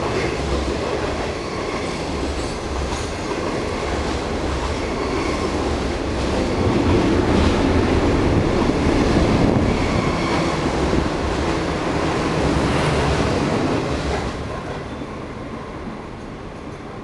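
Type 25Z passenger coaches of a through train rolling past a station platform, their wheels running on the rails in a steady, loud rumble. The sound dies away after the last coach has gone by, about 14 seconds in.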